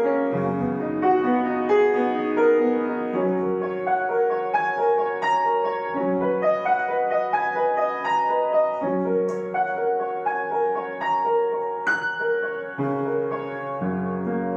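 Solo piano playing a flowing, repeated run of notes in the middle register over low bass notes that change every few seconds.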